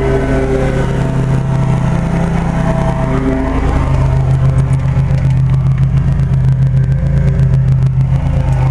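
An engine running steadily with a low hum, shifting a little in pitch about three to four seconds in.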